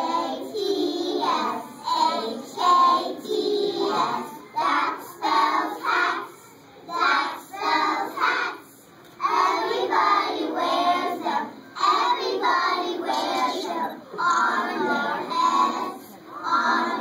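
A group of young preschool children singing a song together in unison, phrase after phrase with short breaks between.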